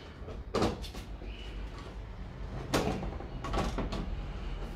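Several short knocks and rubbing clatters of handling, the loudest about half a second in and just under three seconds in, over a low steady hum.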